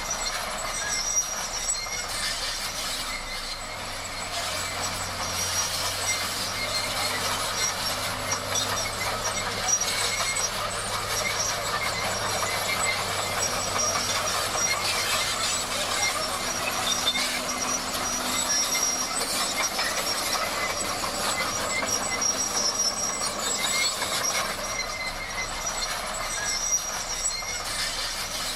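Bulldozer at work: its steel crawler tracks clank and squeal steadily over the low running of the engine.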